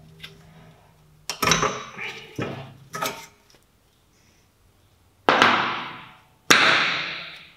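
Metal brake parts being worked loose at a Renault Mégane III rear caliper: a few sharp metallic knocks and clinks, then two loud clattering hits about a second apart near the end, each dying away.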